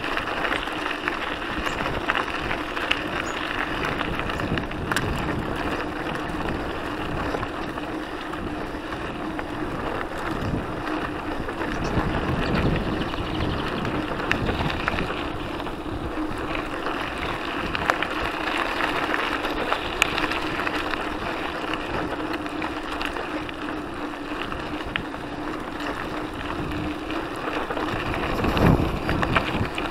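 Mountain bike rolling along a gravel dirt trail: a steady crunch and rattle from the tyres and bike, mixed with wind buffeting the microphone. A few sharp knocks come through from bumps, with a louder jolt near the end.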